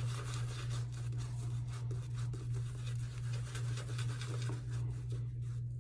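Shaving brush with a grey wolf hair knot working lather over the skin: soft, rapid, scratchy brushing strokes.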